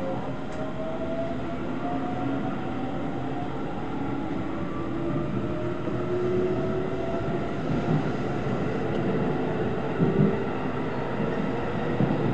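Running sound heard inside the trailer car of a JR Shikoku 6000 series electric train as it gathers speed: a steady rumble of wheels on rail with a motor whine climbing slowly in pitch, and a few knocks over rail joints in the second half.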